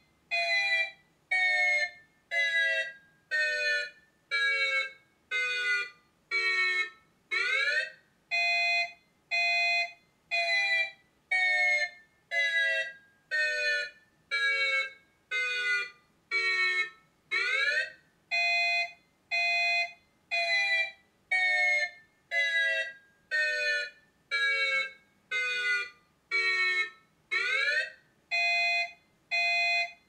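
Electronic warning siren sounding a severe thunderstorm alert as a repeating cycle of short beeps. Two steady beeps are followed by about nine that step down in pitch, then one rising sweep, and the cycle starts again about every ten seconds.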